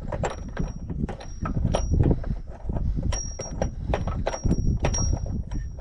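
Rapid, irregular metallic clicks and knocks, several a second, from hand work on steel car parts and tools, over a low rumble, with a thin high tone that comes and goes.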